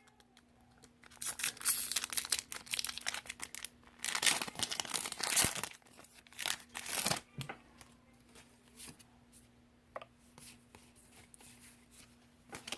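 Foil Pokémon booster pack wrapper being torn open and crinkled, in three noisy bursts over the first seven seconds, followed by a few light clicks of handling.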